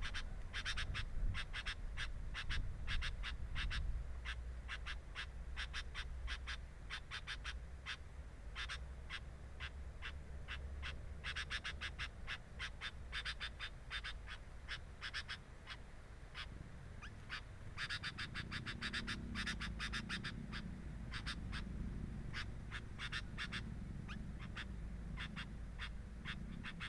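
Bulbul chicks at the nest giving rapid, repeated high chirps in clusters. A low, wavering hum joins about two-thirds of the way in.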